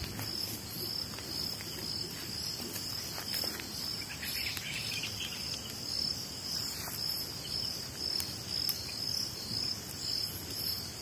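Night insects chirping in a steady, evenly pulsing high trill.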